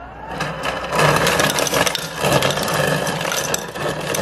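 LG InstaView refrigerator's door ice dispenser on the crushed-ice setting: the crusher motor hums while crushed ice rattles down into a glass. It starts a moment in and gets louder about a second in.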